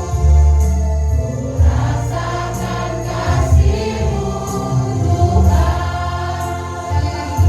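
Choir singing a Christian worship song over instrumental accompaniment with a strong bass line.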